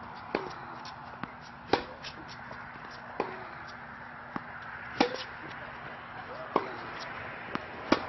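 Tennis ball struck back and forth with rackets in a baseline rally on a hard court: sharp, hollow strikes about every one and a half seconds, with fainter knocks of the ball bouncing between them.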